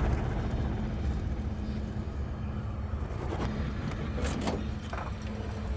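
A motor vehicle's engine running with a steady low rumble, with a few light clicks and rattles partway through.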